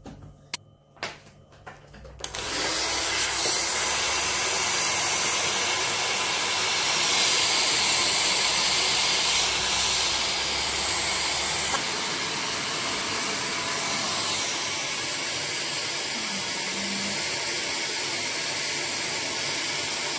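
A few light clicks, then a hair dryer switches on about two seconds in and blows steadily. About halfway through, its low hum stops and the blowing eases slightly.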